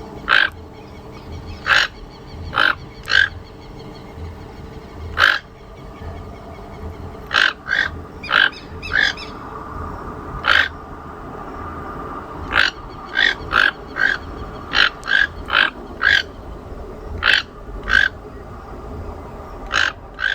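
Short, sharp animal calls repeated at irregular intervals, about twenty in all, over a steady low background noise.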